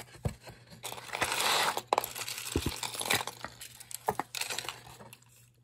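Hands rummaging through a cardboard box of costume jewelry: metal pieces clinking and rattling against each other, with rustling and scattered sharp clicks, the rustling densest about a second in.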